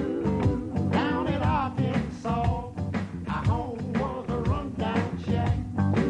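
A beach music song playing: a singer over a band with a steady beat.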